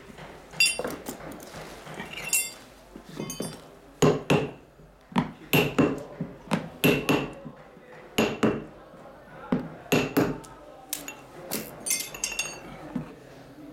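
A metal hand tool knocking and clinking against a rug during hand repair of its knots: about a dozen sharp, irregular taps, each with a short metallic ring.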